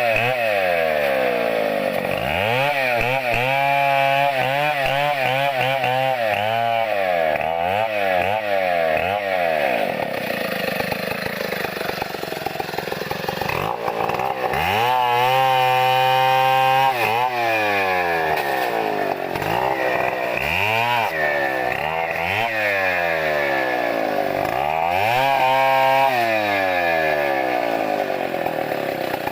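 Two-stroke chainsaw cutting into a coconut palm trunk, its engine speed rising and falling again and again as the throttle is worked, with a steadier stretch about a third of the way through.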